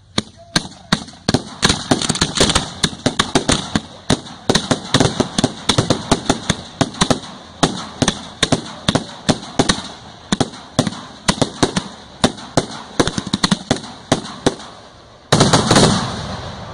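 Aerial display fireworks firing in rapid succession: a quick string of sharp reports, several a second, with a louder, denser blast about fifteen seconds in.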